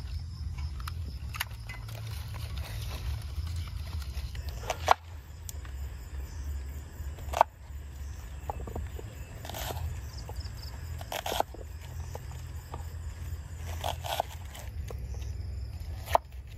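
Small knife cutting a red onion on a wooden chopping board: a handful of sharp knocks of the blade on the board, a second or two apart, over a steady low rumble.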